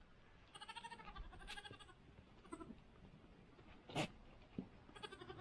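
Goats bleating faintly: one long wavering bleat about half a second in, a short one a little past two seconds, and another near the end. A single sharp knock comes around four seconds in.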